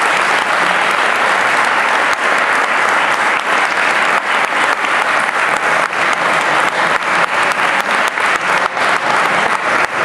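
Audience applauding steadily. In the second half the clapping grows more distinct and even.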